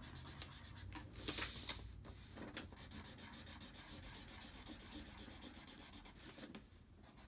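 Felt-tip marker rubbing back and forth on paper, colouring in with quick, even strokes.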